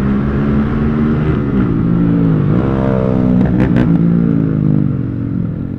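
Motorcycle engine running on the move, its note falling off about two seconds in and then rising again as it picks up speed, with a few sharp clicks partway through.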